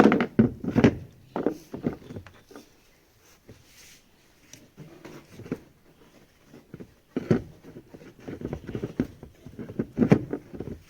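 Irregular knocks and clatter, loudest at the start and again about seven and ten seconds in.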